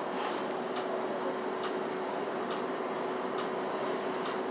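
Steady engine and road noise inside a moving city bus, with a steady hum and a light tick repeating about once a second.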